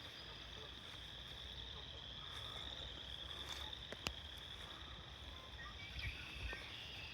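A steady high-pitched chorus of crickets singing without a break, with a single sharp click about four seconds in.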